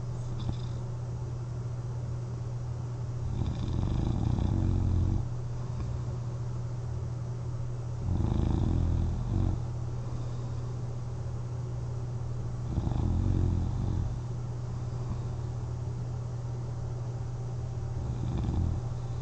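A person snoring on their back while wearing a CPAP mask: four short fluttering snores, roughly one every four to five seconds, over a steady low hum.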